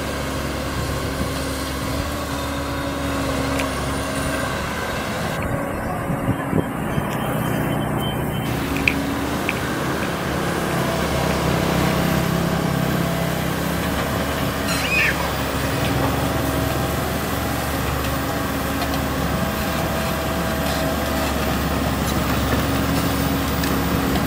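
Komatsu PC130 excavator's diesel engine running steadily as the machine travels on its steel tracks, with a few short clanks and a brief high squeak midway.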